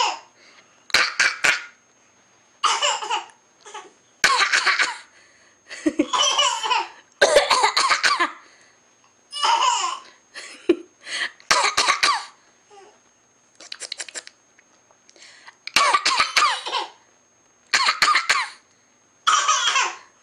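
A baby laughing in short, repeated bursts with brief pauses between them, mixed with playful fake coughs.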